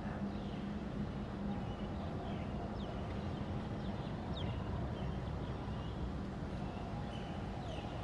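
Steady low background rumble with faint, brief chirps of small birds a handful of times.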